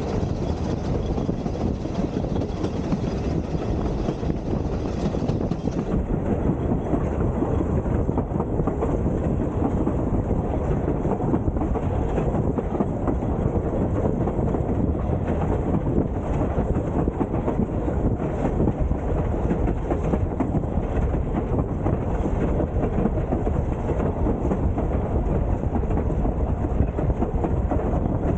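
Narrow-gauge steam train running steadily, heard from a moving coach: a continuous rumble of wheels on the rails with faint rail clicks, and wind on the microphone.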